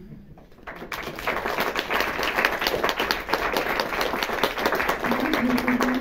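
Audience applauding, the clapping swelling in about a second in and holding steady.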